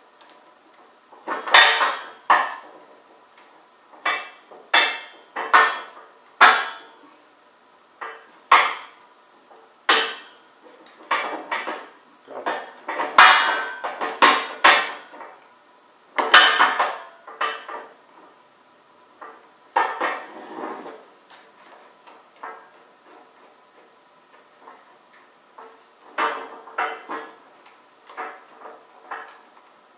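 Irregular metal clanks and clinks of a steel beam trolley being handled and fitted onto a gantry crane's beam, the strikes ringing briefly, with a quieter stretch about two-thirds of the way through.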